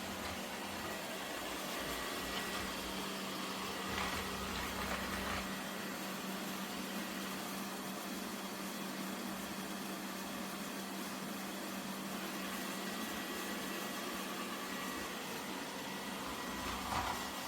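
Lefant M210 Pro robot vacuum running: a steady motor hum under an even suction hiss, with brief louder patches about four seconds in and near the end.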